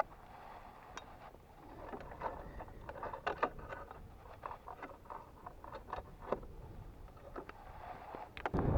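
Scattered small clicks and crunches of a mountain bike being handled after its chain came off, on railway ballast stones. A loud rush of wind on the microphone starts just before the end.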